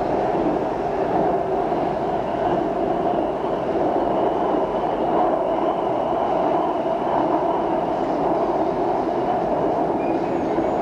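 BTS Skytrain car running between stations, heard from inside the car: a steady running rumble of the train with a faint, high, steady whine above it.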